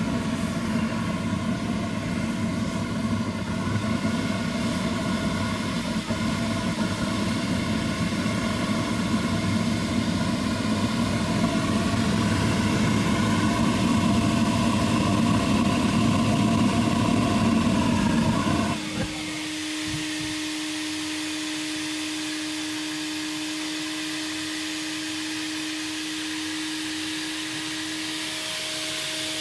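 Diesel-fired furnace burner running, its flame giving a heavy low rumble over the steady whine of the vacuum cleaner used as its blower. About two-thirds of the way through, the rumble stops suddenly and only the blower's steady hum and hiss remain.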